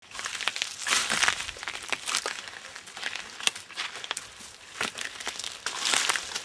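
Footsteps crunching and rustling through leaf litter and twigs on a woodland floor, in irregular bursts with a few sharp snaps.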